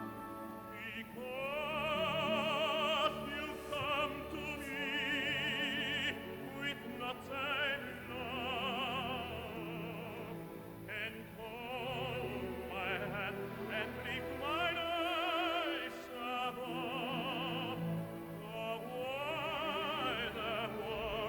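Operatic tenor singing with strong vibrato, accompanied by a full orchestra.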